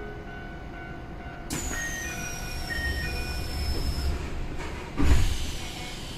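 Keisei 3200-series commuter train's doors closing before departure: a sudden hiss with a few short chime tones, then a heavy thud about five seconds in as the doors shut.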